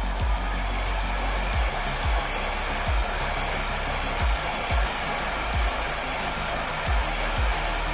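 Heat gun blowing a steady rush of hot air. It is softening the adhesive that holds the iPhone 11's Face ID flex cable to the screen glass.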